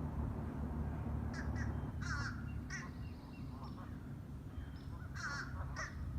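Crows cawing a few times in two short bouts, over a low steady background rumble.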